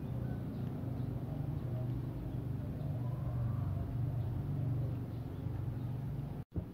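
Domestic cat purring close to the microphone, a steady low pulsing rumble that cuts off abruptly near the end.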